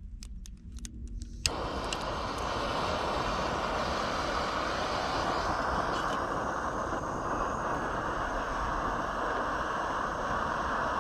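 A few light clicks, then about a second and a half in a sharp click and a canister gas stove's burner lights and runs with a steady hiss, heating a pot of water.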